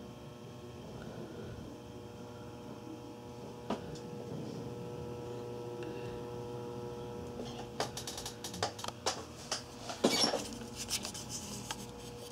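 Dell Precision 360 desktop PC running: a steady hum of cooling fans with a faint whine. In the second half come a run of sharp clicks and knocks from handling nearby, loudest about ten seconds in.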